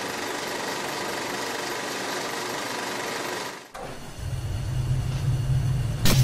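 A steady hiss that stops suddenly, then a low, steady mechanical rumble like a motor running, with one sharp loud knock near the end.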